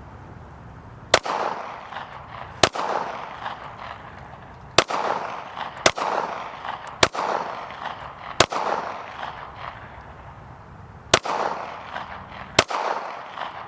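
Eight single gunshots fired one at a time at a target, spaced about one to two and a half seconds apart with a longer gap near the end, each followed by an echo trailing off.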